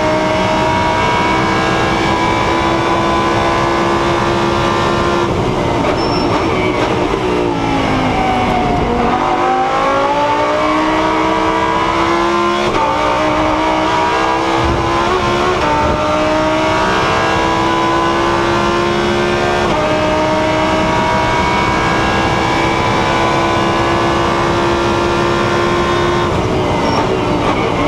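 Lamborghini Huracán Super Trofeo's V10 engine heard from inside the race car's cabin at full racing speed. It holds high revs, then falls away over a few seconds under braking. It climbs back up with a few gear changes, each a quick dip in pitch, and drops again near the end.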